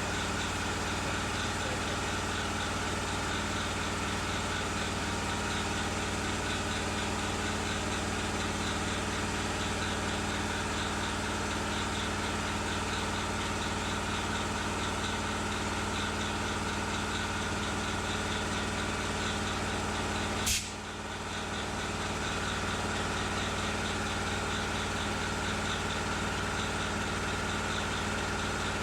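Steady electric motor hum of a workshop machine running, with one sharp click about two-thirds of the way through and a brief dip in the hum that soon recovers.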